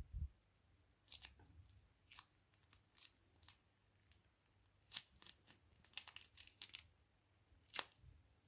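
Plastic piping bag crinkling and crackling as it is handled, in scattered sharp ticks with a few soft bumps; the loudest crackles come about five seconds in and near the end.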